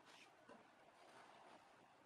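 Near silence: room tone with a couple of faint, soft handling noises.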